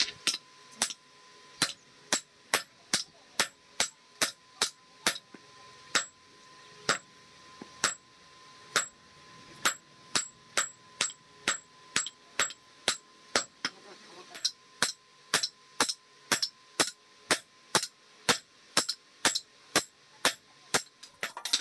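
Hand hammer forging a red-hot iron meat cleaver blank on a steel anvil block: sharp metallic blows about two a second, with a brief slower stretch in the middle, and a steady ring from the anvil between blows.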